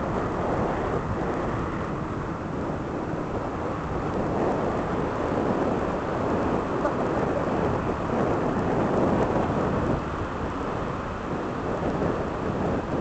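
Sea waves breaking and washing up a sandy beach: a steady rushing noise that swells a little in the middle.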